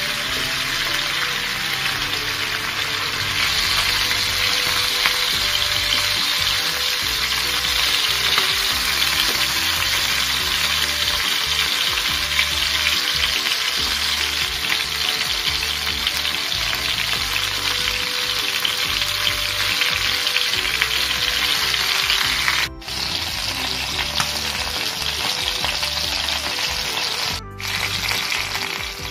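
Chicken pieces sizzling as they fry in hot oil in a pan, being stirred and turned with a spatula. The steady sizzle breaks off for an instant twice near the end.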